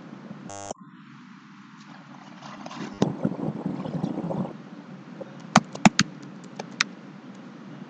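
Computer mouse clicks: a quick cluster of about five sharp clicks past the middle, over a steady low background hiss. A stretch of low rumbling noise comes before them, and a brief buzzy blip near the start.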